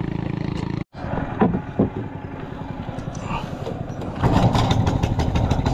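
A small engine running. The sound cuts out suddenly just under a second in, then an engine is heard again and gets louder from about four seconds in, with a fast, even pulsing beat.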